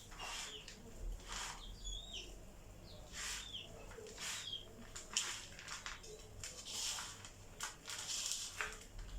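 Oats coated in honey and oil being mixed by hand in a bowl: a series of soft, sticky rustling strokes, one every half second to a second, with a few faint high chirps in between.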